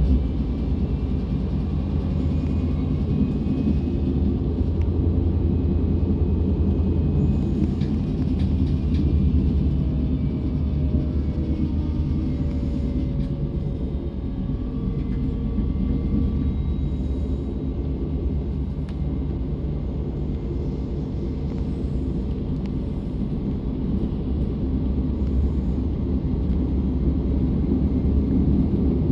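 DB Class 425 electric multiple unit heard from inside, running between stations: a steady low rumble of the running gear on the track, with faint whining tones that drift slowly in pitch.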